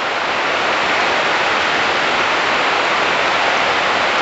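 Heavy rain falling on the market's roof overhead: a steady, even hiss.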